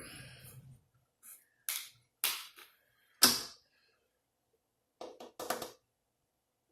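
Several short, sharp crackling noises at uneven intervals, the loudest about three seconds in.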